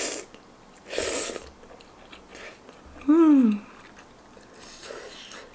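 Instant noodles slurped up from chopsticks in two quick noisy pulls, then chewing. About three seconds in comes a short hum from the eater that falls in pitch, the loudest sound.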